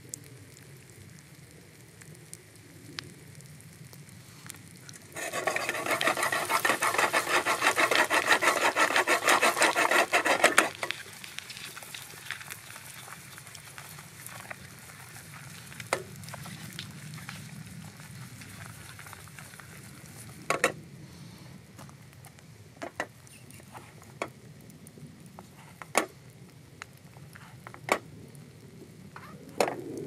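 Boiled eggs frying in hot oil in a pan over a campfire: a low steady sizzle, rising to a loud, dense burst of sizzling about five seconds in that lasts some five seconds and then drops back. After that come several sharp, separate clicks.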